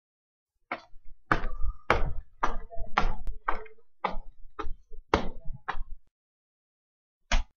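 A run of sharp knocks at an even pace of about two a second, stopping after about five seconds, then a single knock near the end.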